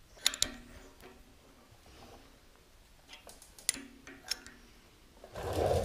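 Scattered sharp metallic clicks of a thread-insert installation tool and wrench as a coil thread insert is started and wound into a tapped hole in a cast-iron rear end case. Near the end comes a louder noise lasting about half a second.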